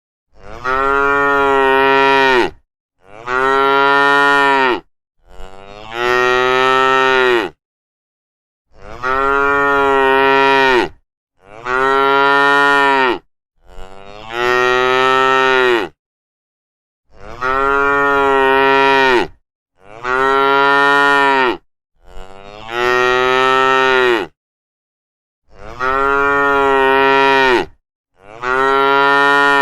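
Cattle mooing: about eleven long moos, each around two seconds, one after another with short silent gaps between them.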